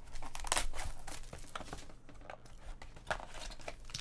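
Plastic wrap being torn and crinkled off a trading-card box, dense for about two seconds, then sparser rustles and handling of the cardboard box and a foil-wrapped pack.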